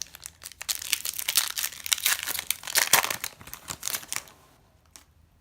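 Yu-Gi-Oh booster pack's foil wrapper crinkling and tearing as it is ripped open, a dense crackle for about three and a half seconds that dies down near the end.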